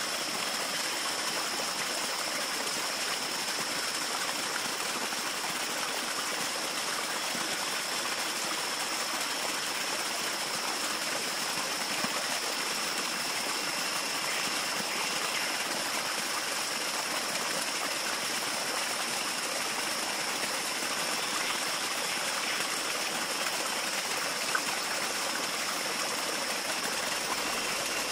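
Steady rushing of running water, even and unbroken, with a continuous high-pitched buzz held over it.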